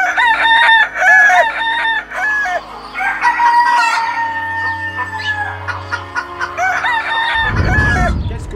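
Chickens clucking in short repeated calls, with a rooster crowing one long held call in the middle, then more clucks. A low rumble comes in near the end.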